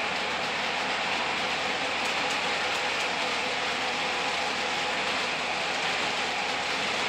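O gauge model trains running on three-rail track: a steady, even noise of wheels and motors.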